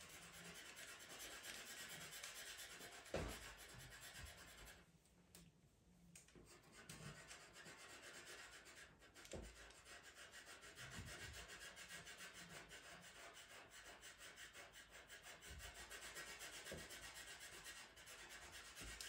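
Pastel pencil scratching across PastelMat paper in quick, short strokes, a faint steady rasp that pauses briefly about five seconds in.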